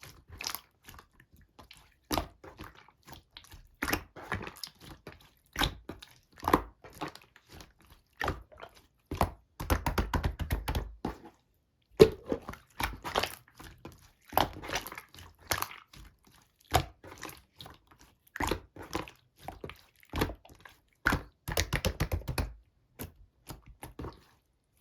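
Hands squishing, pressing and poking slime, making irregular wet, sticky squelches and sharp popping clicks as air pockets burst. About ten seconds in, and again near the end, come runs of rapid crackling.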